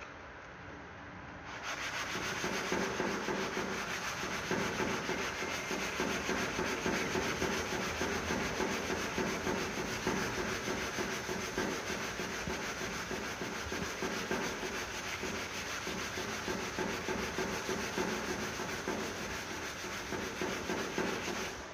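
Sandpaper on a small hand sanding block rubbed quickly back and forth over cured body putty on a car body panel, shaping and flattening a filled repair. The steady rubbing starts about a second and a half in and stops just before the end.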